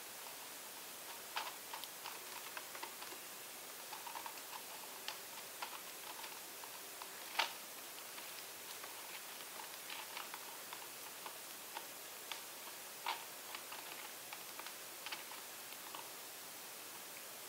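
Faint, irregular small clicks and crackles over a steady hiss as a clear plastic cup is slowly lifted off a canvas by a plastic-gloved hand, with acrylic paint draining out. A slightly louder click comes about halfway through.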